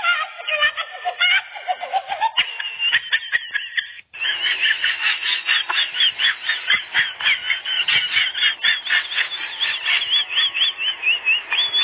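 A rapid run of high, squeaky squeals and mews from young animals in rough play, several cries a second with the pitch wavering up and down. A brief break about four seconds in, after which the cries go on densely.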